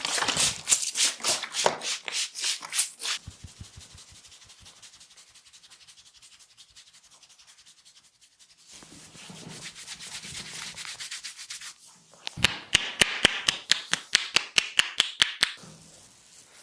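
Hands rubbing briskly over hair and scalp in quick strokes, then softer rubbing, then a run of rapid sharp slaps, about five a second for roughly three seconds, as in the tapping part of a head massage.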